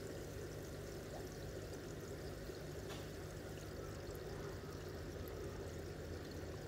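Steady trickle of running water over a low, even hum, with a faint click about three seconds in.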